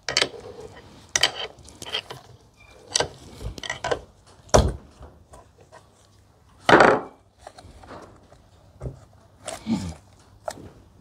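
A screwdriver and loose metal parts clinking, knocking and scraping against the cast-aluminium casing of a Tufftorq K46 hydrostatic transaxle as it is taken apart on a wooden bench. The sounds come in an irregular scatter; the loudest are a sharp knock about halfway through and a longer scraping clatter a couple of seconds later.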